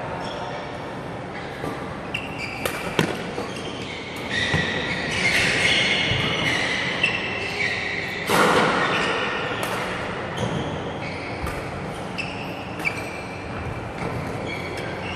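Badminton rally on a wooden indoor court: sharp racket strikes on the shuttlecock, the loudest about eight seconds in, with short high squeaks of court shoes between them, all echoing in a large hall.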